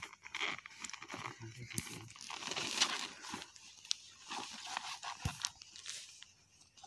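A green cloth drawstring bag rustling and crinkling as hands grip it and pull its mouth open, with scattered sharp snaps of dry leaves and twigs.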